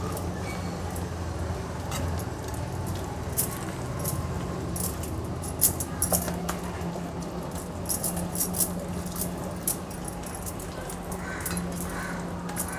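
Bangles jingling and clinking, with wet squelches and scrapes of fish pieces on a steel plate, as hands rub masala marinade into black pomfret; irregular clicks over a steady low hum.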